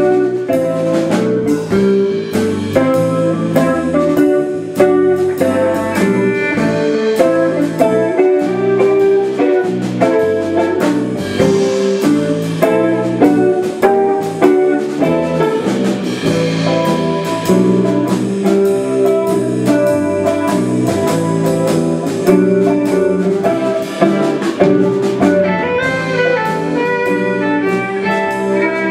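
A small live band playing a jazz tune: guitar played with a drum kit keeping time, and a violin joining in.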